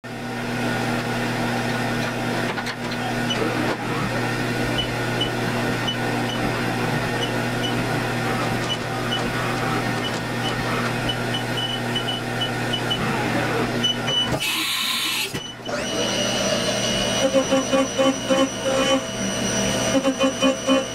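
HAAS TM-1 CNC milling machine running with a steady hum. About two-thirds through, a short burst of noise. Then the end mill cuts the aluminium blank under coolant, a pulsing, uneven cutting sound.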